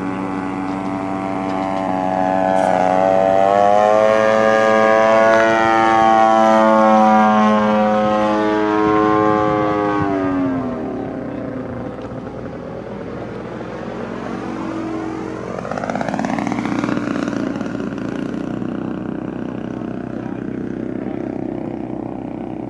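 DLE 55 single-cylinder two-stroke gasoline engine of a large radio-controlled Tiger Moth biplane in flight. The engine note swells and climbs in pitch over the first few seconds, drops steeply about ten seconds in, then climbs again around fifteen seconds in.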